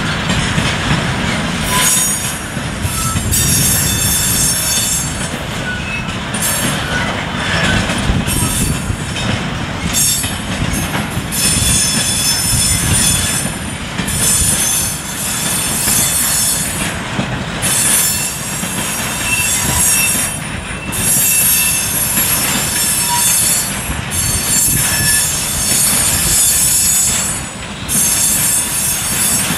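Long freight train of car-carrier wagons rolling past, a steady rumble of wheels on rail with high-pitched wheel squeal that comes and goes every second or two.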